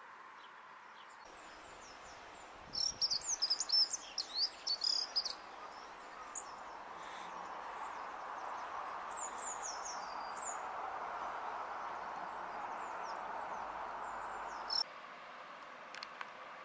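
A small garden songbird sings a rapid run of high chirping notes about three seconds in, followed by a few shorter high calls. Under it runs a steady background noise haze that stops abruptly near the end.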